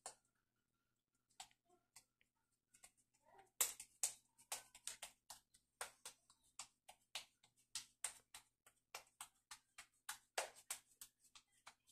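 Hands patting a ball of moist corn masa dough to shape a tamal. A few soft pats come first, then from about three and a half seconds in a quick, even run of light slaps, about four a second.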